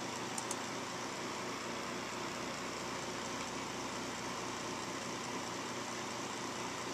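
Steady mechanical hum and hiss, like a fan or appliance motor running, with two faint clicks about half a second in.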